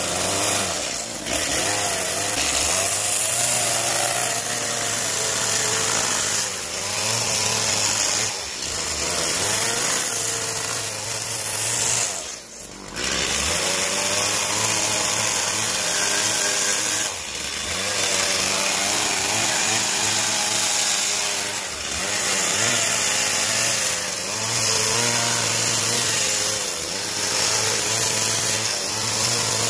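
Stihl chainsaw running and carving into a wooden log, its engine note wavering as the bar cuts. The sound breaks off briefly every few seconds, most clearly about twelve seconds in.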